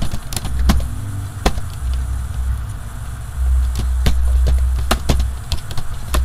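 Computer keyboard typing: sharp key clicks, irregular and spaced out, over a loud, uneven low rumble.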